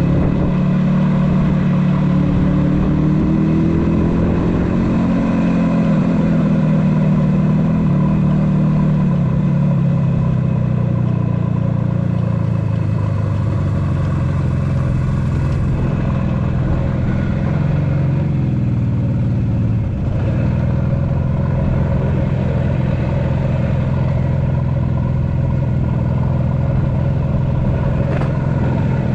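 1976 Yamaha RD400's two-stroke parallel-twin engine running under the rider at low speed, its pitch rising and falling with the throttle for the first twenty seconds or so, then holding lower and steady.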